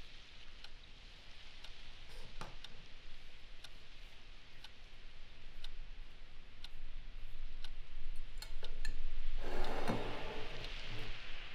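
Wall clock ticking about once a second in a quiet room, over a faint hiss. Near the end a ceramic plate slides across a wooden coffee table with a louder scrape.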